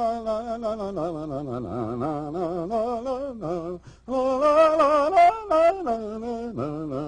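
A man singing a wordless melody with a wavering pitch. It breaks off briefly about four seconds in, then comes back louder and higher.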